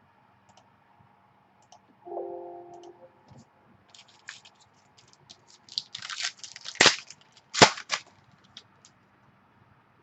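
Trading card pack wrapper and cards being handled and torn open: a run of crinkling, crackling and clicks, loudest twice near the seven-second mark. A brief low tone sounds about two seconds in.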